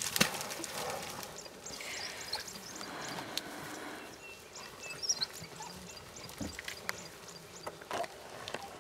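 Pack of African wild dogs mobbing and tearing at a bushbuck: scuffling and knocks with scattered short, high chirping calls.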